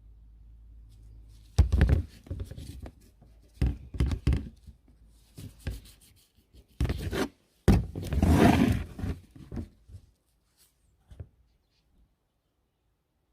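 Handling noise: a run of knocks, thunks and scraping rubs as hard objects are moved and set down, lasting about eight seconds and then stopping.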